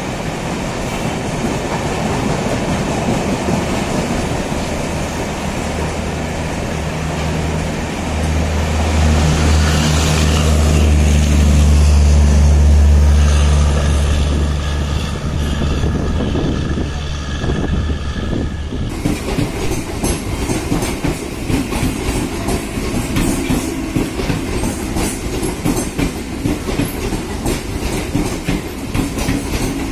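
Mumbai suburban electric local train running at speed. A deep hum swells for about ten seconds a third of the way in, then from about two-thirds through the wheels clatter quickly and continuously over rail joints.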